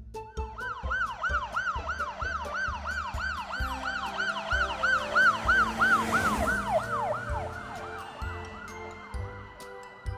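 Police car siren on a fast yelp, its pitch rising and falling about three times a second, fading out about seven seconds in. Children's background music with a steady beat plays underneath.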